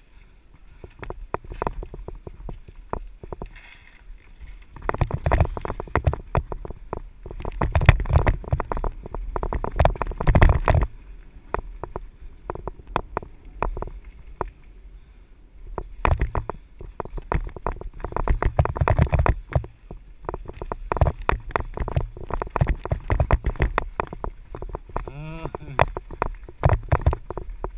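Mountain bike clattering and rattling as it rides down a rough dirt singletrack over roots and stones, loudest in two rough stretches, one about a fifth of the way in and another after the middle.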